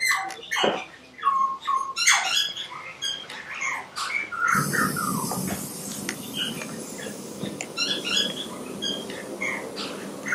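Several birds chirping and calling, with short overlapping calls that rise and fall in pitch. About four and a half seconds in, a steady low rumble and hiss joins underneath.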